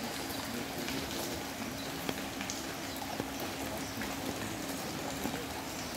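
Rain falling, with many small drops pattering and ticking on surfaces over a steady hiss, and a steady low hum underneath that fades out near the end.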